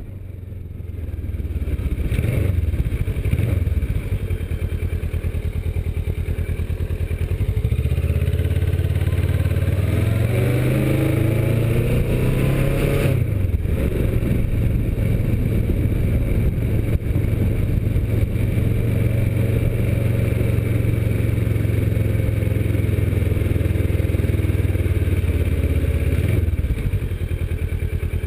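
Kawasaki Versys motorcycle engine pulling away and accelerating through the gears, its pitch climbing and then dropping at each shift. It then settles to a steady run at cruising speed and eases off near the end.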